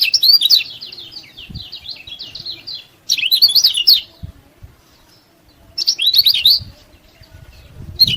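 Lemon-bellied white-eye (kecial kuning) singing in fast, high chirping trills that come in bursts of about a second, four times with short pauses between.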